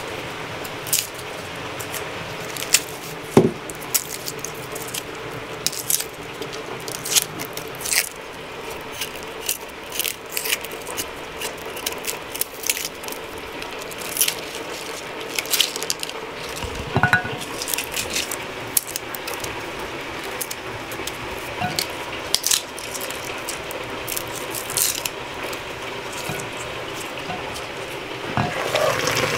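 Garlic cloves being peeled with a small kitchen knife over a plate: irregular sharp clicks and crackles of the papery skin, with the odd light tap on the plate.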